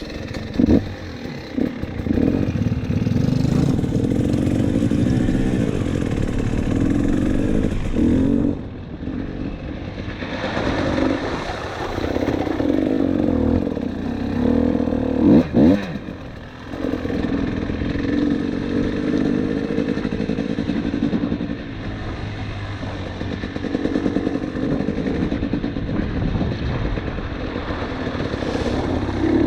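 KTM 300 TPI two-stroke dirt bike engine running under way, the revs rising and falling as the throttle opens and closes, with a few clattering knocks about halfway through.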